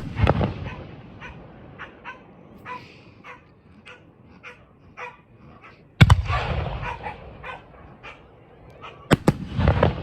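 Aerial firework shells bursting: a sharp bang right at the start, another about six seconds in and two close together near the end, each followed by a rumbling crackle that dies away, with short scattered pops in between.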